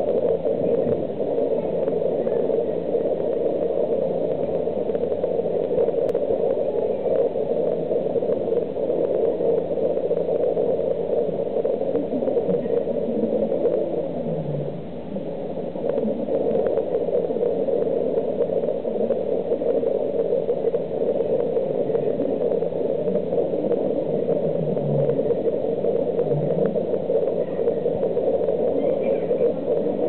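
Steady rushing, water-like noise of an aquarium hall, with faint voices murmuring underneath. The noise dips briefly about halfway through.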